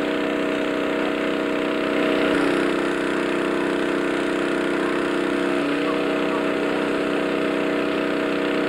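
A small engine running steadily at constant speed, a held hum with slight shifts in tone about two and a half and again about five and a half seconds in.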